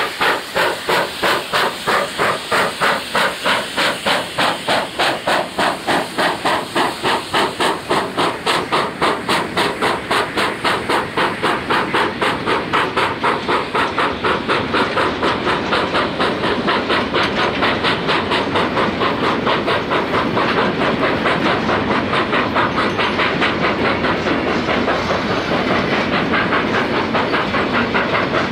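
South African Railways steam locomotive accelerating, its exhaust chuffing at about two beats a second at first and quickening steadily until the beats run together in the last third, with a steam hiss underneath.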